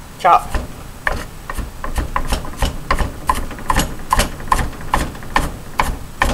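Kitchen knife chopping onion on a wooden cutting board, in quick even strokes about three to four a second.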